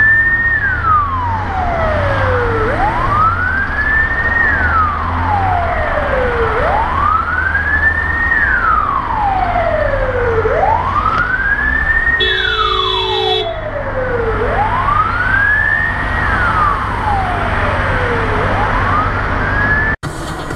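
Emergency vehicle siren wailing in slow cycles, each rising over about a second and a half and falling over about two seconds, repeating about every four seconds. A steady low engine rumble runs underneath, and a steady horn-like tone sounds for about a second around the middle.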